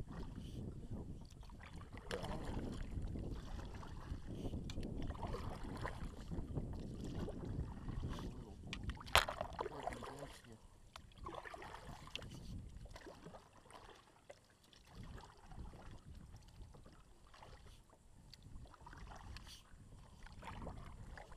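Kayak paddles dipping and splashing in the water at an irregular stroke rhythm over a low rumble, with one sharp knock about nine seconds in; the splashing grows quieter in the second half.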